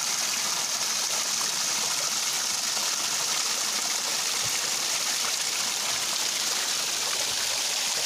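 Water cascading and splashing over rocks in a small waterfall: a steady, even rush, strongest in the high hiss of the spray.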